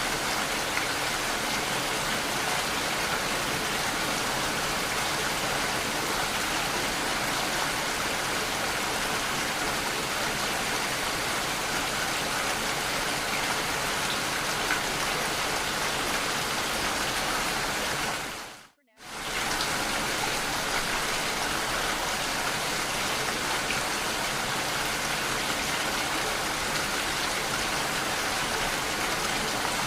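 Steady, even rain sound used as a subliminal's masking track, dropping out to silence for a moment about 19 seconds in and then returning.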